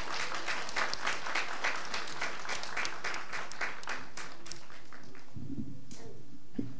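Audience clapping in time together, about three to four claps a second, dying away about five seconds in.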